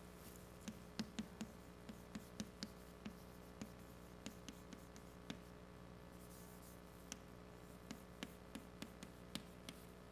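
Chalk tapping and scratching on a blackboard as a formula is written: a run of short, irregular light taps, over a steady low hum.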